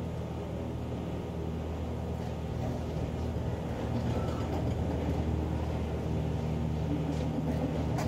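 Steady low engine rumble, growing a little louder about four seconds in.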